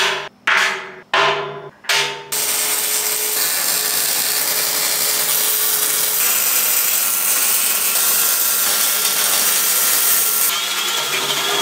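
Four short bursts of noise, each dying away, then a steady hiss of electric arc welding on steel. Near the end a high steady whine joins in as a cordless angle grinder runs.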